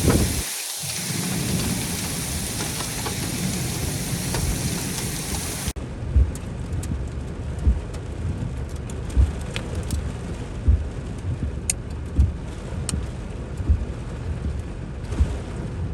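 Heavy rain pouring in a severe thunderstorm. About halfway through it cuts to quieter rain with a dull thump repeating about every second and a half, and scattered drops ticking.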